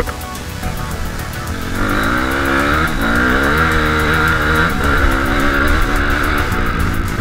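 Dirt bike engine revving up and down from about two seconds in, louder than before, over background music.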